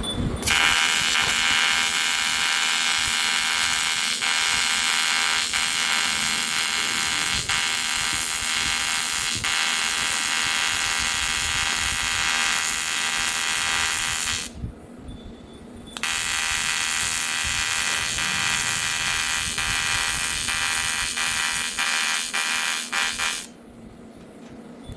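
AC TIG welding arc on aluminium, a steady high buzz that starts about half a second in. It breaks off twice for a second or so, once about two-thirds of the way through and again near the end.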